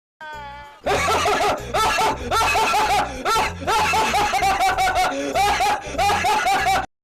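Laughter sound effect: a short falling slide, then rapid, high-pitched cartoonish cackling laughter over music with a steady low beat, cutting off suddenly near the end.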